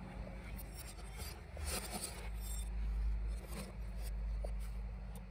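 Light scraping and rubbing with a few short clicks, over a steady low rumble.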